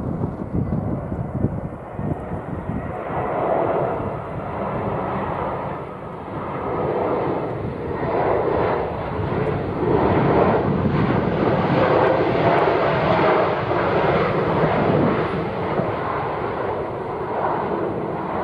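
Jet engines of an Airbus A320neo, its Pratt & Whitney PW1100G geared turbofans, running loud with a rushing, rumbling noise that swells and dips in level. A faint wavering tone sits within it.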